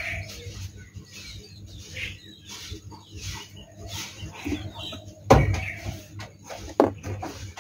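Cardboard box flaps being handled and folded open, with scattered rustles, a loud thump about five seconds in and a smaller knock about a second and a half later.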